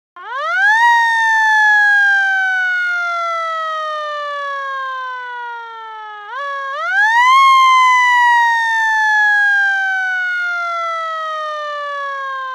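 A siren wailing: it starts suddenly, climbs fast in pitch, falls slowly for about six seconds, then climbs fast again and starts another slow fall.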